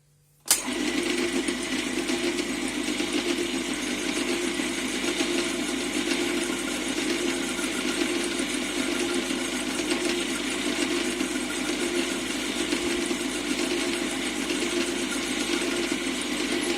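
Metal-turning lathe switched on about half a second in, its motor and gear train then running steadily.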